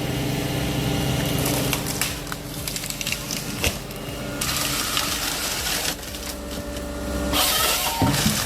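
Timber harvester fitted with a Nisula harvester head at work: its engine runs steadily while wood cracks and splinters in the head. A louder rush of noise starts about halfway through and lasts a few seconds.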